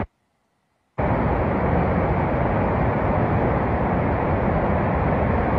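About a second of silence, then the steady rushing of a muddy flash-flood torrent in a river, a dense even noise with no break.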